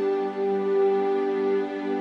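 Slow background music of long, held notes.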